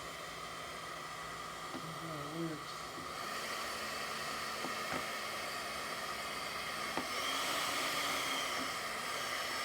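Faint steady hiss with a few light clicks, about five and seven seconds in.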